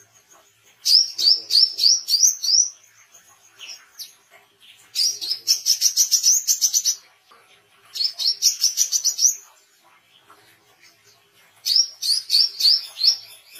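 Male brown-throated sunbird singing: four bursts of rapid, sharp, high repeated notes, the third burst the fastest, with short pauses between bursts. This is the chattering 'beset' song of a bird in full song.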